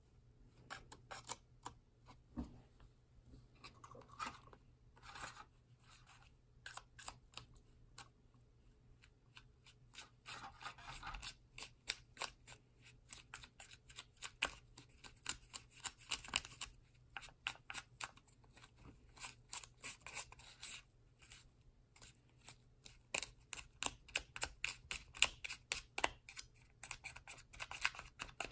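Small plastic spoon scraping and stirring a thick, doughy candy-kit mix in a plastic tray, with the tray handled and tapped: a run of quick, irregular scrapes and clicks.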